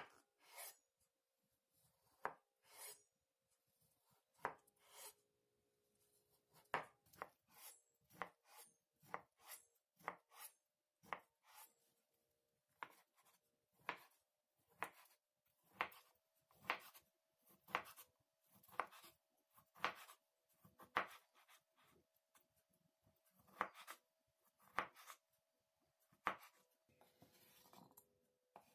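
Chef's knife chopping boiled beetroot on a wooden cutting board: sharp knocks of the blade against the board, about one a second and unevenly spaced. Near the end a brief scraping as the diced beet is slid off the board.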